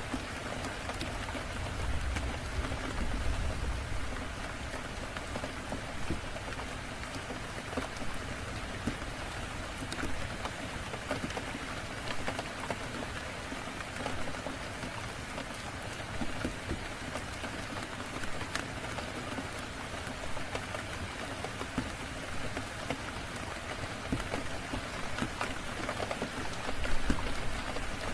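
Steady rain falling, an even hiss of drops with scattered sharp ticks, and a few low rumbles swelling briefly about two seconds in and again near the end.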